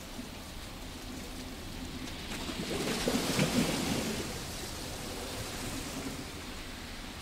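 Sea waves washing onto a rocky beach: a steady wash, with one wave surging and breaking about three seconds in, then dying back down.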